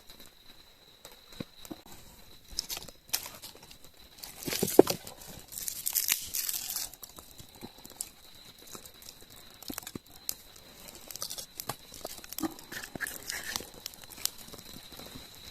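Crinkling and rustling with scattered sharp clicks, loudest about five to seven seconds in, over a faint steady high tone.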